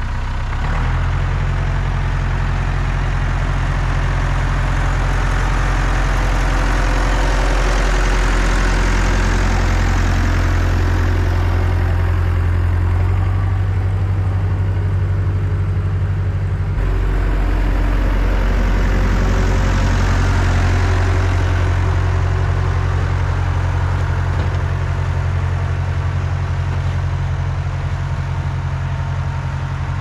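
Tractor engine running steadily with a PTO-driven rear snowblower turning, heard close up, as the tractor makes a pass clearing a snowy road. A rushing noise swells and fades twice, and the sound changes abruptly about two-thirds of the way through.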